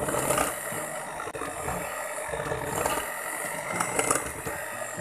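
Electric hand mixer running, a steady motor whine, its wire beaters churning icing sugar, butter and milk and clicking against a glass bowl.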